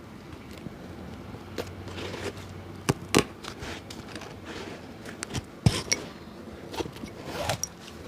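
Irregular scraping and several sharp clicks from hand work on a shoe during a cobbler's restoration, with the sharpest clicks about three seconds in and near six seconds.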